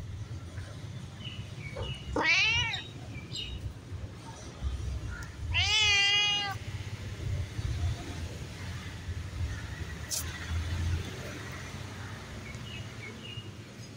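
White cat meowing twice at close range, a short call about two seconds in and a longer, louder one a few seconds later, over a low rumble.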